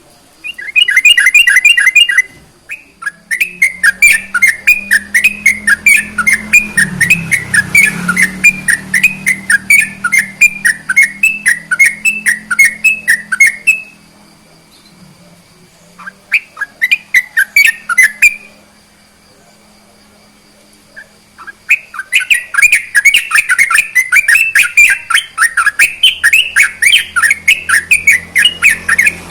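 Yellow-vented bulbul singing a rapid, chattering song of quickly repeated notes in long runs. The song comes in four bursts with short pauses between them, the second and last running for many seconds.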